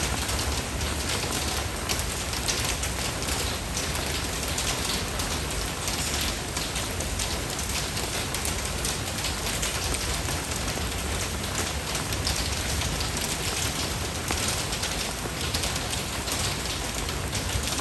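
Steady rain falling, a dense even hiss full of fine drop patter.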